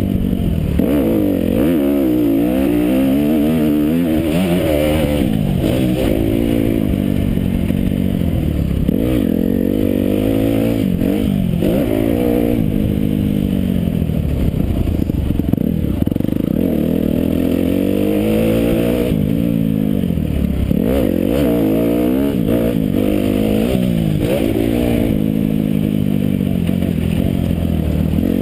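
Motocross bike engine revving hard under the rider, its pitch climbing and dropping back over and over every second or two as it accelerates and shifts through the gears.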